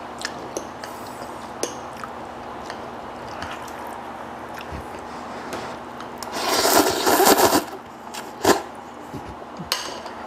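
Noodles slurped loudly off a fork for about a second and a half midway through. Around it come light clinks and scrapes of a metal fork and spoon against a glass soup bowl.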